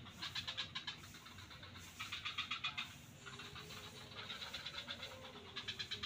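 Frogs calling in rapid pulsed trills, about ten pulses a second, coming in bouts of a second or so: one at the start, one about two seconds in, a longer one through the middle, and another near the end.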